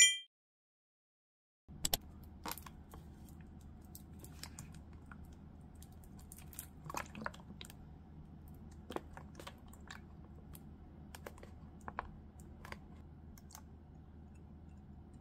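A short bright chime at the very start, then after a second and a half of silence, quiet kitchen handling: scattered small clicks and taps of a plastic container and pouch as amazake is squeezed in and soy milk poured.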